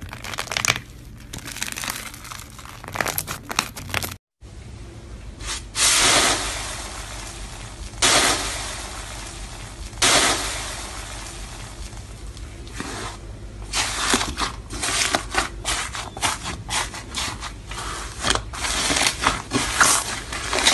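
Hands pressing and kneading slime, giving crackling, crunching squishes. Pink slime is pushed through a plastic grid, then a crumbly green slime is squeezed. After a brief dropout about four seconds in, there are loud squeezes about every two seconds, then a quick run of crackles near the end.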